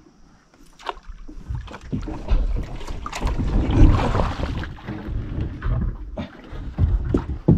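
Splashing and knocking against the boat as a small speared crocodile is hauled aboard over the side. The sound is busiest a few seconds in.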